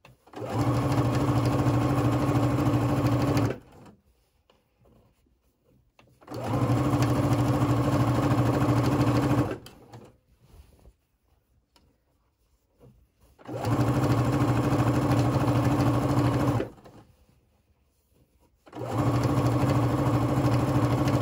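Sewing machine running a straight stitch in four bursts of about three seconds each, with short pauses between, as it stitches a shirt's folded hem.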